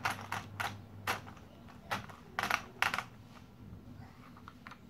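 Irregular light plastic clicks and rattles from a Thomas Cranky toy crane as its hook is raised by hand, with a few quick clusters of clicks partway through.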